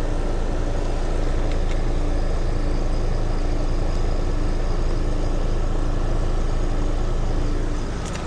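Outdoor air-conditioning condensing unit running, its compressor and condenser fan giving a steady hum that eases slightly near the end.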